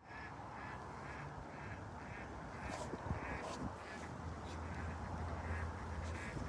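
An animal making a quick series of short calls, about three a second, that thin out after the first few seconds. Brief scratching scrapes come in as the animal digs in dirt.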